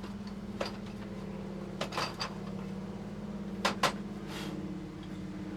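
Sharp clicks and knocks of tools and parts being handled while a truck's storage compartments are searched, with two quick knocks near the middle. A steady low hum runs under them.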